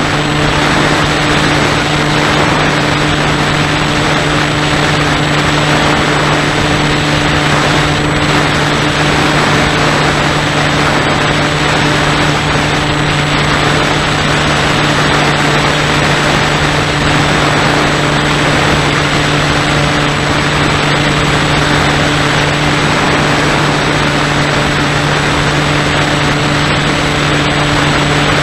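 Radio-controlled model airplane's motor and propeller running at a steady pitch, heard close from a camera on board, over a loud rushing noise.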